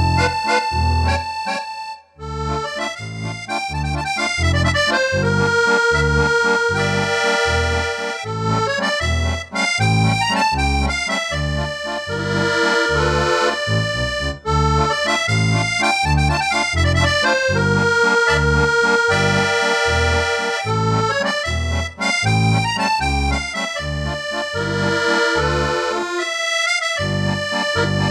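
Scandalli piano accordion played solo: a melody on the right-hand keys over a steady rhythmic bass from the left-hand buttons. The playing breaks off briefly about two seconds in and again shortly before the end.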